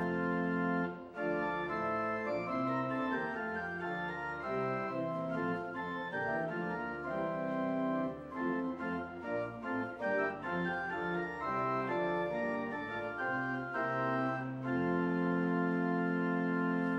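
Two-manual church organ playing the postlude after the benediction: sustained chords and moving lines, with a busier run of shorter notes in the middle, then a long held chord from about three-quarters of the way through.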